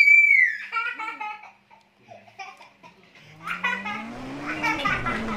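Small children laughing and squealing, with a high squeal at the start. From about halfway through, an engine sound rising steadily in pitch runs underneath the laughter.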